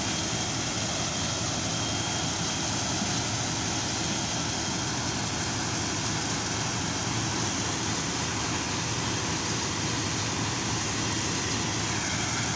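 Truck-mounted borehole drilling rig running steadily while drilling: an even, unchanging engine and machine noise with a constant hiss of air and spray blowing off the mast.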